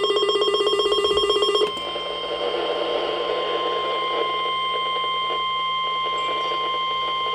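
Weather radio sounding a tornado warning alert: a rapid pulsing beep for about a second and a half, then the steady single-pitch NOAA Weather Radio warning alarm tone (1050 Hz) with a light hiss of radio noise beneath it.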